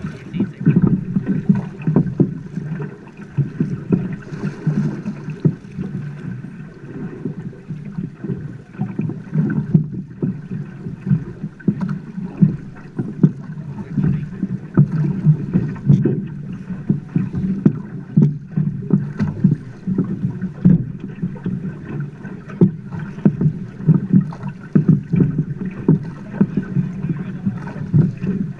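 River water rushing and slapping against a drift boat's hull, with many irregular knocks and the splash of oars dipping into the current.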